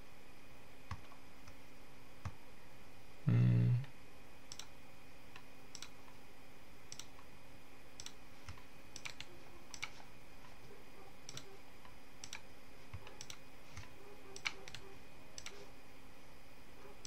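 Computer mouse and keyboard clicks, scattered about once a second, over a faint steady hum. About three seconds in comes a short low hum, the loudest sound.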